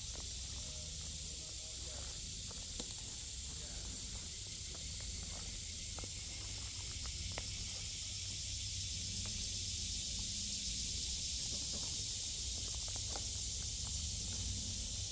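Steady high-pitched buzz of insects, with a constant low rumble underneath and a few faint clicks.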